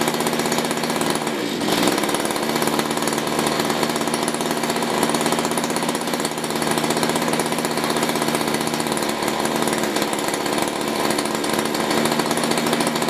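Mantis two-stroke rototiller engine running steadily with its tines spinning freely in the air, on a cheap replacement carburettor. Its speed dips briefly about a second and a half in, then picks back up.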